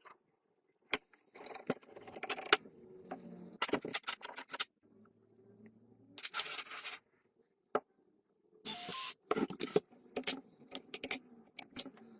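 Metal clinks, knocks and scrapes of an old chainsaw and its parts being handled, coming irregularly, with a brief hiss about nine seconds in.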